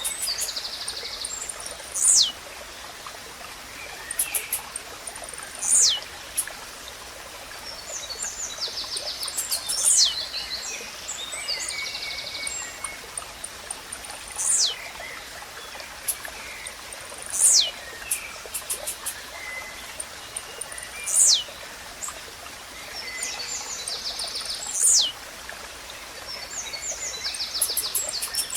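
Blue-black grassquit (tiziu) repeating its short, sharp, high song that sweeps downward in pitch, seven times at roughly four-second intervals. Other birds chirp and buzz between the songs over the steady rush of a stream.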